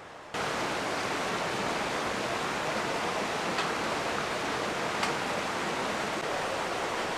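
Steady rushing noise that starts abruptly just after the start and holds even throughout, with a couple of faint clicks.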